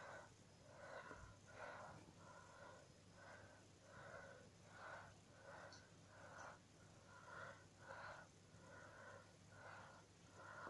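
A Labrador retriever's faint, rhythmic sniffing and breathing, about one and a half breaths a second.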